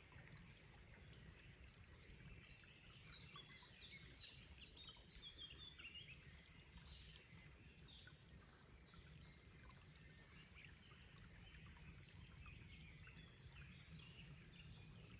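Faint forest birdsong: a run of short notes, each sliding down in pitch, about three a second, from about two to six seconds in, with scattered chirps after, over a low steady rush of a stream.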